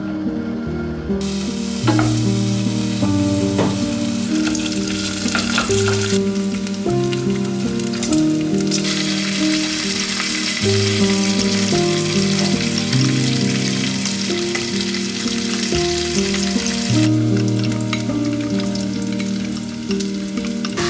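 Steak sizzling in a frying pan, the hiss coming and going in long stretches, over background music with a steady melody. A fork clinks a few times against a glass while egg yolks and grated pecorino are stirred into carbonara sauce.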